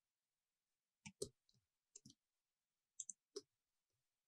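Faint computer mouse clicks, in three small groups about a second apart, with near silence between them.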